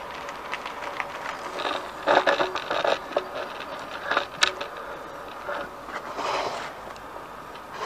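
Handling noise: irregular scraping and rustling with a few sharp clicks, densest about two seconds in and with a single sharp click near the middle.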